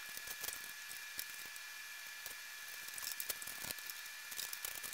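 Quiet room tone: a steady hiss with a faint high whine running through it and scattered light clicks.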